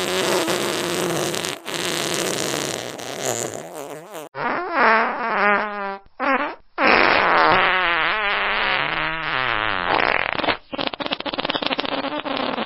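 Fart sound effects played one after another: about half a dozen long, pitched farts whose pitch wavers up and down, split by short gaps, the last one sputtering rapidly.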